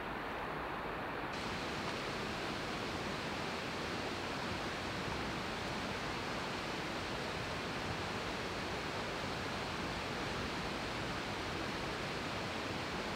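Steady rush of falling and flowing water from the Merced River at Vernal Fall. It turns brighter and hissier about a second in.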